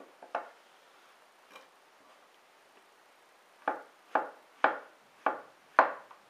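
Santoku kitchen knife slicing through button mushrooms and striking a wooden cutting board: one tap under half a second in, then a run of five crisp strikes about two a second in the second half.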